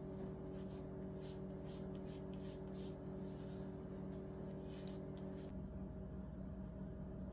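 Faint, soft rubbing strokes of a microfiber cloth wiping a trading card on a paper towel, a quick series that stops about two-thirds of the way through, over a steady low room hum.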